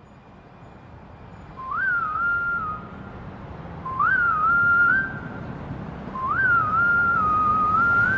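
Whistled melody in three short phrases, each jumping up and then wavering along, over a rumbling noise bed that grows louder: the instrumental intro of a hip-hop song, before the vocals come in.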